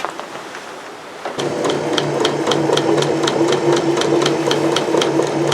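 A newer sewing machine stitching at a steady speed, starting about a second and a half in: an even hum with a light click about four times a second. It is a quiet, relaxed running sound, unlike the louder clatter typical of old mechanical machines.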